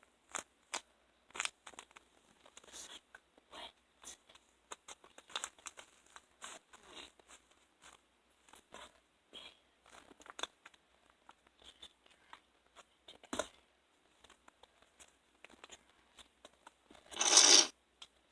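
Paper being handled, in short scattered crackles and crinkles. There is a sharp click about 13 seconds in and a louder burst of rustling or tearing paper near the end.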